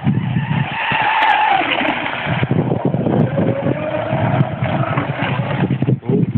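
Leopard 3674 2200kv brushless motor of an RC speedboat whining at speed across the water, its pitch rising about a second in and climbing again more slowly from about three seconds in. Gusty wind buffets the microphone throughout.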